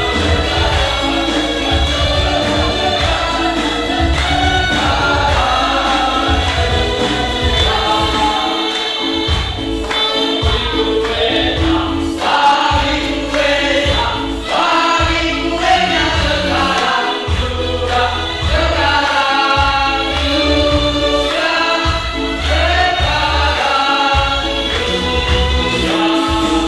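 Music: several voices singing a melody together over instrumental accompaniment with a steady bass beat.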